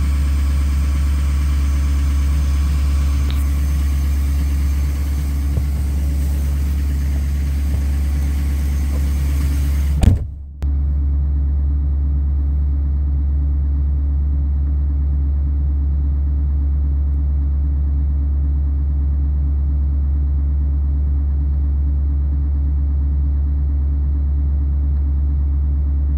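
Duramax 6.6L turbodiesel V8 idling steadily at its cold-weather elevated idle of about 1,100 rpm, heard from inside the cab. The raised idle warms the coolant faster when it is below freezing outside. The sound briefly cuts out about ten seconds in.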